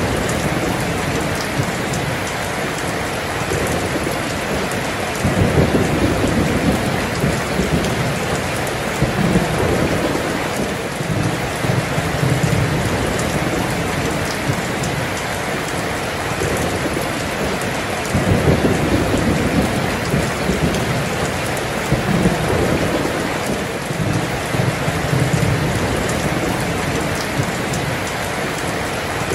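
Heavy rain pouring down steadily, with low rolling thunder swelling up and fading away several times.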